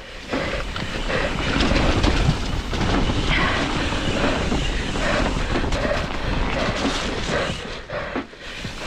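Wind buffeting the microphone over a low rumble as a mountain bike rolls down a rough, wet trail, with frequent small knocks and rattles from the bike over the bumps.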